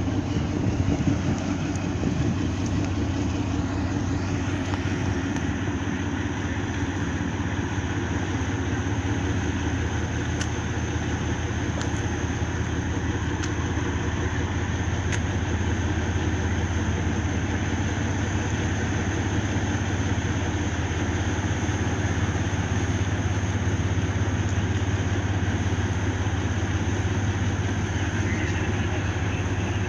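A ship's engine running with a steady low drone, with a few faint clicks about ten to fifteen seconds in.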